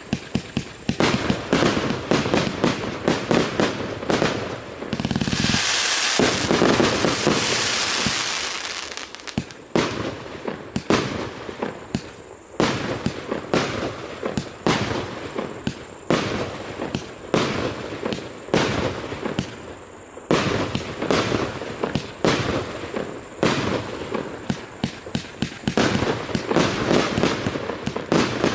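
A 288-shot, one-inch consumer fireworks cake firing: a steady run of sharp launches and bursts, a few each second. About five seconds in, a dense crackling spell lasts some three seconds.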